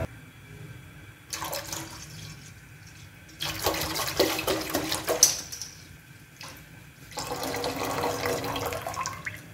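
Milk pouring from a plastic jug into a steel saucepan that already holds milk, with splashing. It comes in three spells with short pauses between them.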